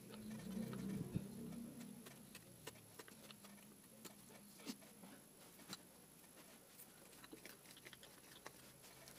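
Faint, irregular clicks and light ticks from hand work with wood-carving tools, with a low hum in the first couple of seconds.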